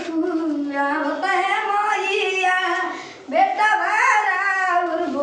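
A child singing a Bhojpuri song in long held phrases, with a short pause for breath about three seconds in.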